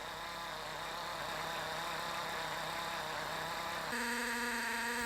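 Portable valve grinding machine running steadily while lapping a valve seat. About four seconds in the sound changes to a steadier, more even hum.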